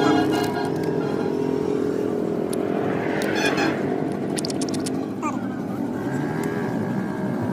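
Motorcycle engine running steadily, with a short pitched tone right at the start and a few sharp clicks about three to four seconds in.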